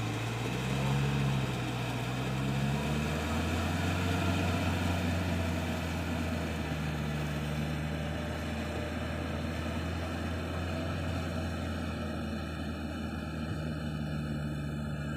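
Yanmar EF 494 tractor's diesel engine running steadily under load while pulling a rotary tiller, its note shifting in pitch during the first few seconds and then holding even.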